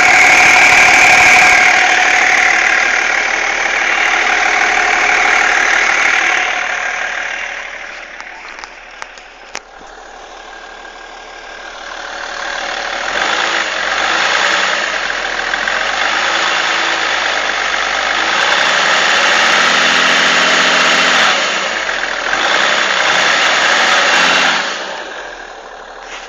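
BMW E46 330d straight-six diesel engine running, with the weird noise from behind the power steering pump. The sound drops away about a third of the way in, with a few sharp ticks, then comes back loud and falls off again near the end.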